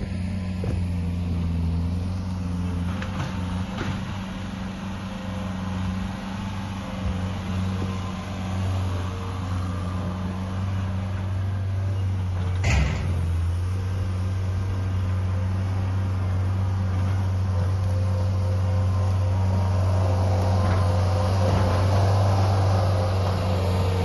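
A heavy machine's engine running steadily, with a single sharp clank about halfway through.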